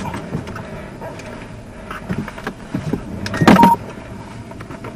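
Cabin noise of a patrol car rolling slowly across a parking lot: a steady low engine and road hum with small clicks and rattles. About three and a half seconds in there is a short loud burst with a brief tone.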